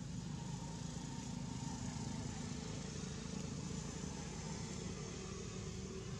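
A steady low motor rumble, like an engine running at a distance.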